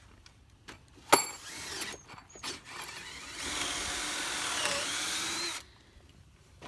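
A power drill/driver drives a TimberLOK screw into a rough-cut timber rafter joint, running steadily for about two and a half seconds and stopping abruptly. About a second in there is a single sharp knock.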